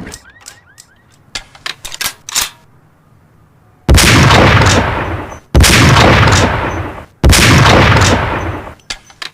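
Steyr SSG 69 PII bolt-action sniper rifle: a run of short, sharp clicks, then three loud shots about a second and a half apart, each trailing off in a long echoing tail.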